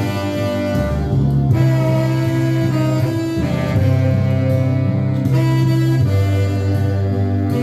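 Instrumental music: long held notes over a low bass line, the harmony changing every second or two.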